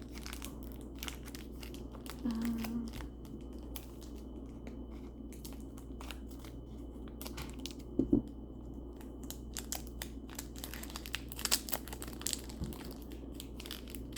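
Wrappers of Squishmallow trading-card packs being torn open and crinkled, in scattered crackles, with a thump about eight seconds in.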